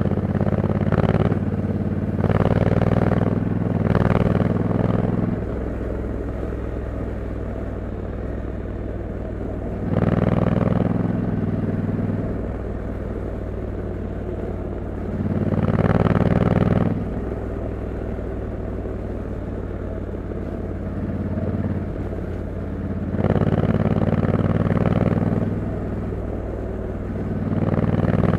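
2021 Honda Africa Twin 1100 DCT's parallel-twin engine on its stock exhaust, running under way, with the sound swelling louder for a second or two several times.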